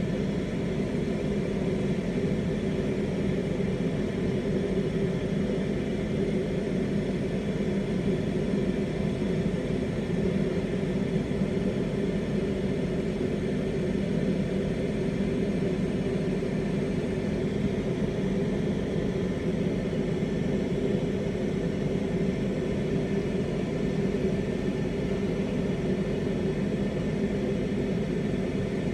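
Steady roar of a bench lampworking torch flame heating borosilicate glass, with a low, even hum beneath it that does not change.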